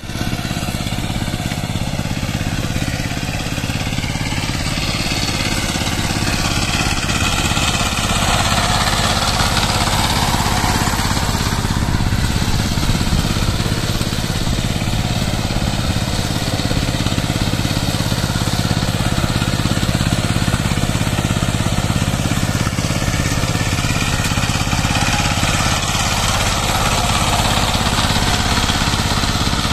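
Two-wheel power tiller's single-cylinder diesel engine running steadily under load as it drives its cage wheels and rotavator through flooded paddy mud.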